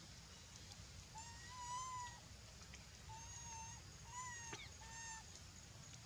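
Macaques giving high, thin coo calls: about five short calls, the longest about a second, most held at a steady pitch and one sliding downward, faint.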